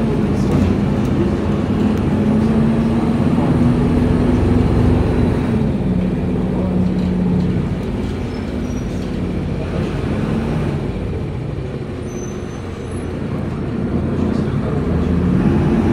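City bus interior while driving: the engine running with its note shifting as the bus changes speed, over road noise. It eases off briefly past the middle, then grows louder again near the end.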